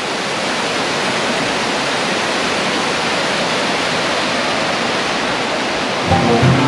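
Mountain waterfall cascading over rocks: a steady, loud rush of falling water. Music comes in near the end.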